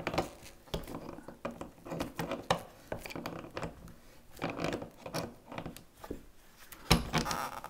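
Gloved hands working the braided stainless water supply line and turning its nut onto the dishwasher's brass inlet elbow: scattered clicks, rubs and light taps, with a louder knock near the end.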